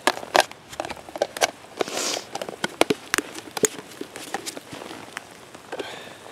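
Campfire crackling under a steaming cast iron pan: irregular sharp pops and clicks, with a couple of brief hisses.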